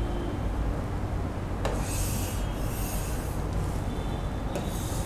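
Stylus rubbing and scratching in short strokes on a smart-board screen during writing, with a single tap about a second and a half in, over a steady low hum.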